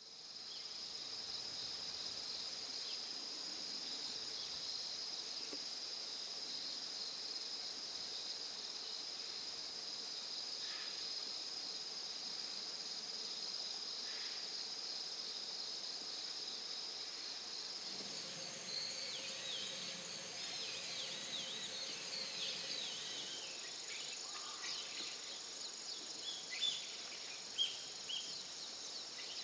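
Outdoor ambience of insects singing: a steady high trill at first, then after a cut about two-thirds of the way through, a fast, evenly pulsed very high chirping of about three pulses a second. Short gliding chirps and two sharp clicks come near the end.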